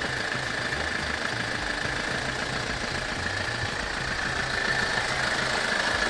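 Toyota Auris engine running at idle as the car creeps slowly forward, growing a little louder near the end as it draws close.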